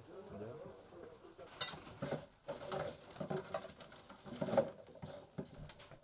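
Handling noise: a steel machine pistol and tools being moved among bags and cloth, giving irregular metallic clicks and knocks, the loudest knock about three-quarters of the way through.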